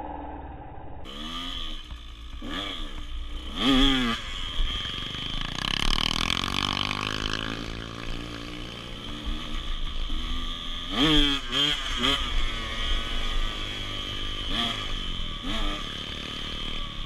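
Dirt bike engine running under way, revving up and dropping back several times as the rider works the throttle and gears.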